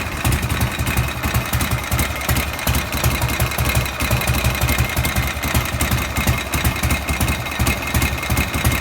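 Harley-Davidson Shovelhead V-twin engine idling with an even, regular pulse. Running with an abnormal noise from the rocker cover area.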